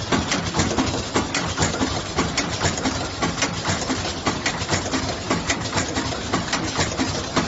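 Wet wipe making and packing machine running: a steady mechanical rattle with rapid, regular clicking and knocking.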